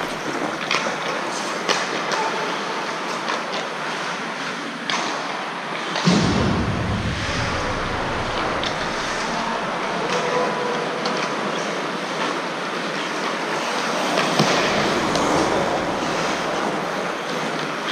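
Hockey game in play: a steady wash of rink noise with frequent sharp clacks of sticks and puck.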